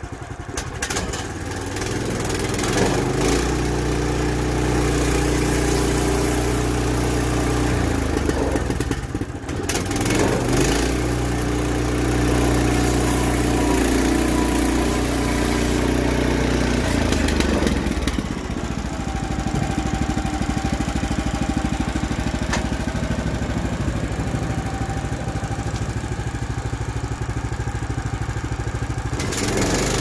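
Woodland Mills HM130MAX portable bandsaw mill running, its gas engine working steadily under load as the band blade cuts along a log, with a brief dip about nine seconds in. Some eighteen seconds in the engine eases to a lighter running while the head travels back along the track, then picks up again near the end.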